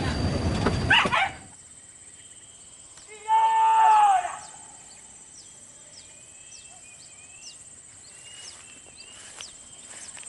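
A dog gives one loud, drawn-out cry about three seconds in, lasting about a second and dropping in pitch at the end. Before it, loud vehicle rumble cuts off suddenly about a second in. Afterwards a steady high insect drone and faint bird chirps are heard.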